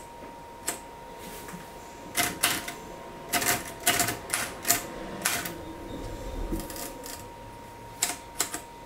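Manual typewriter keys striking the paper, about a dozen sharp, irregular clacks, most of them in a quick run in the middle and three more near the end.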